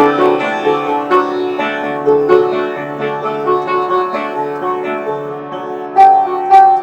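Instrumental music: plucked-string and keyboard notes over sustained tones, with no voice.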